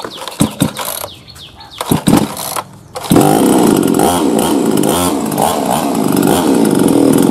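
Starkut 22-inch two-stroke petrol chainsaw being pull-started: a few sharp pulls on the starter cord, then the engine catches about three seconds in. It runs loudly, revving up and down on the throttle.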